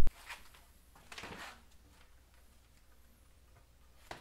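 Mostly quiet room tone with a few faint, short rustles and a light click near the end.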